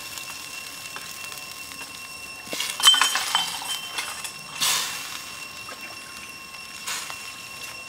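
Raw cow feet knocking and clinking against a steel wok as they are lowered into the soup broth: a cluster of knocks a few seconds in, then a short splash and a smaller one near the end.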